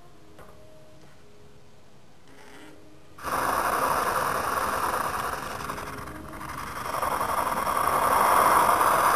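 Liquid-fuel (kerosene) torch burning, its jet flame giving a steady rushing hiss. The hiss starts abruptly about three seconds in, dips briefly midway and is loudest near the end.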